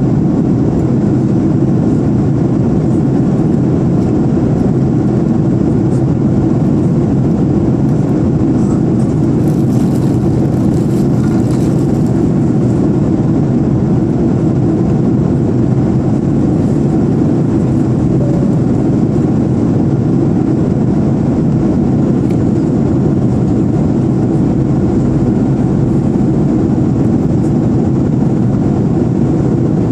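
Steady cabin noise of an Airbus A340-300 in flight, heard inside the cabin at a window seat over the wing: an even, low rumble of the CFM56 engines and rushing airflow.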